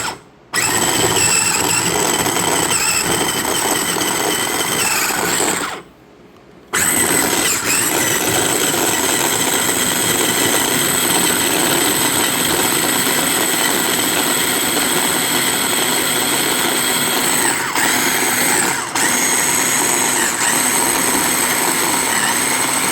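Small electric food chopper running in long bursts, its blades chopping red pepper and garlic. It stops for about a second around six seconds in, then runs on with two brief dips near the end.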